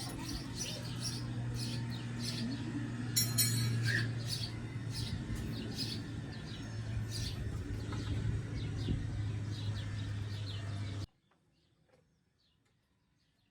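Birds chirping repeatedly in short high calls over a steady low hum. About eleven seconds in the sound cuts off abruptly, leaving only faint chirps.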